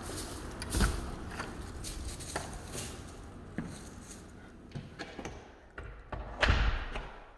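Footsteps and scattered knocks as someone walks into a house under construction, with a loud thud about a second in and another, the loudest, near the end.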